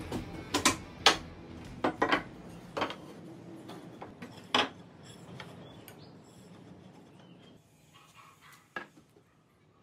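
Wooden workpieces handled and set down on a wooden workbench: a run of sharp knocks and clacks over the first few seconds, the loudest about four and a half seconds in, then quieter handling with one last knock near the end.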